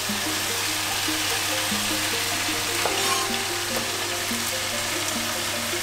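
Crumbled tofu frying in hot oil in a pan, a steady sizzle.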